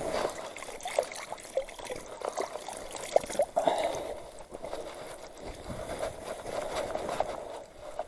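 Water splashing and trickling close by, a string of small sharp splashes over a steady wash of running water.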